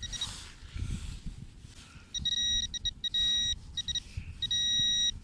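A metal detector's high electronic signal tone, beeping on and off in short bursts from about two seconds in, a sign of metal right under the coil. Low wind and handling rumble underneath.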